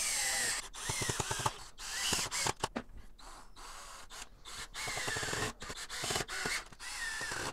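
Cordless drill running in short bursts, driving pocket-hole screws into a pine frame, with knocks from the wood and clamp being handled in between.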